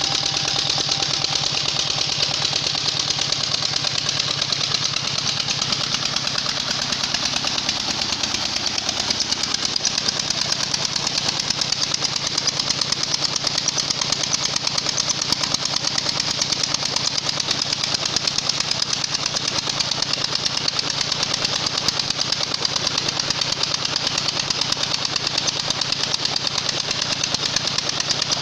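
Single-cylinder stationary diesel engine running steadily, with a fast, even knock that does not change in speed or level.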